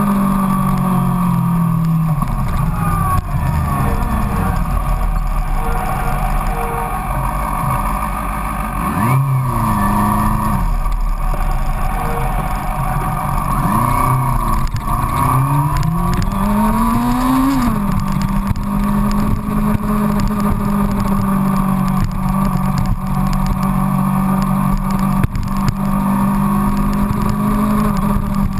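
Yamaha FZX250 Zeal's 250 cc inline-four engine running on the move, picked up by a camera on the front fender. It holds a steady note, then from about eight seconds in the revs fall and climb again several times before settling back to the steady note for the rest.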